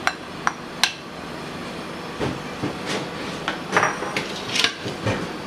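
A series of sharp knocks and clatters of kitchen utensils against a non-stick kadai as chopped onions are tipped from a bowl into the oil.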